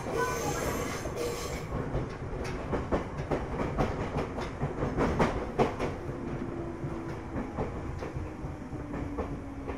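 Ryutetsu 5000-series electric train running, heard from inside the car: a steady rumble with a run of clickety-clack from the wheels over rail joints in the middle, and a faint steady low tone from the running gear in the second half.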